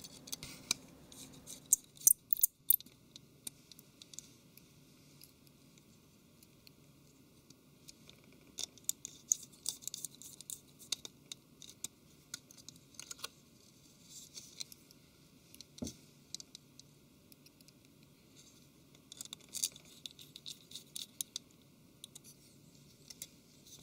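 Small Phillips screwdriver clicking, tapping and scraping on tiny screws as they are picked up and driven into a tablet's mainboard and metal frame. The sound is light, scattered ticks that come in short clusters.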